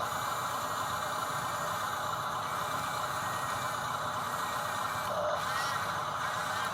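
Small electric motors and gearboxes of a radio-controlled construction model running, a steady whir with some rattle.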